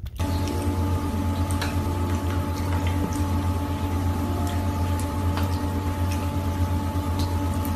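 A cat pawing at water in a bowl: water sloshing and dripping with scattered small splashes. Under it runs a steady low hum.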